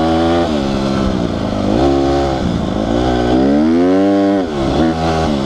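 Honda CRF150R dirt bike's single-cylinder four-stroke engine being ridden under throttle. Its pitch climbs and then drops back about three times.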